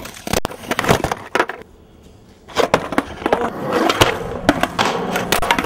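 Skateboard clattering on concrete: wheels rolling, with the deck and trucks giving a run of sharp clacks and knocks. The sound drops out briefly about two seconds in, then the rolling and clacking resume, with a hard knock about four seconds in.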